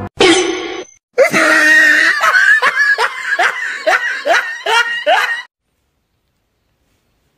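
A short loud shriek, then a run of rhythmic laughter, about two laughs a second, that cuts off suddenly about five and a half seconds in.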